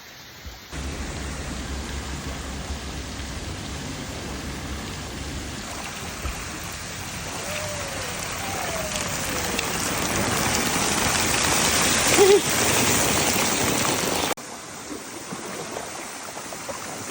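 Steady rush of falling, splashing water, like a waterfall or heavy spray. It grows louder until about twelve seconds in, then drops suddenly to a quieter rush near the end.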